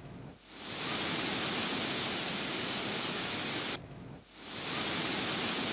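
Muddy floodwater rushing over rocks in a swollen river channel, a steady even rush. It drops away briefly near the start and again a little before 4 s, each time swelling back up within about half a second.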